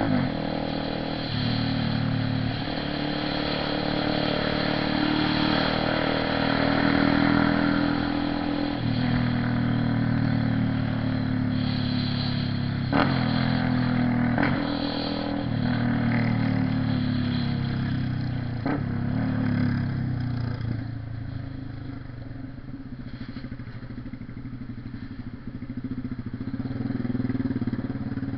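Honda CB 300R's single-cylinder engine running, its note stepping up and down several times, with a few sharp clicks about halfway through.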